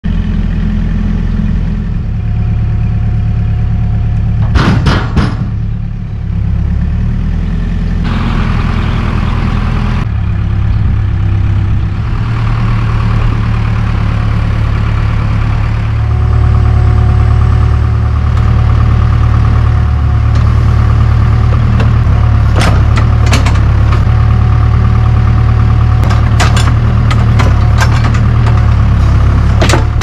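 Heavy equipment engine running with a steady low rumble that shifts abruptly a few times, with a short cluster of sharp knocks about five seconds in and several more knocks in the last eight seconds.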